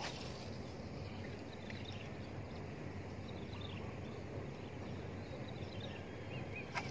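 Steady outdoor background noise with faint, scattered bird chirps, a brief sharp sound at the very start and a single click near the end.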